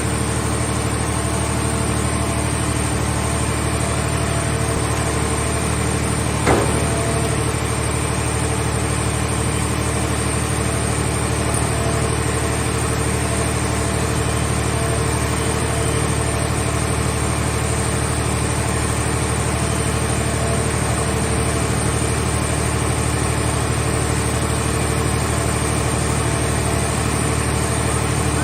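Engine of a mobile car scrap baler running steadily at an even speed, with a single knock about six seconds in.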